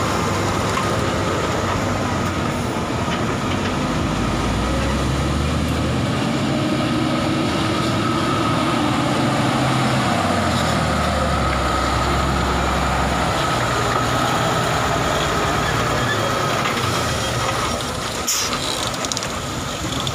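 Heavy diesel truck engines running close by as the trucks crawl past, the engine note rising and falling, with a faint steady whine above it.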